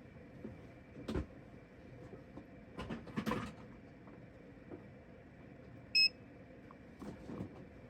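A single short, high electronic beep from a mini heat press as it powers up after being plugged in, about six seconds in. A few knocks and clatters come before it.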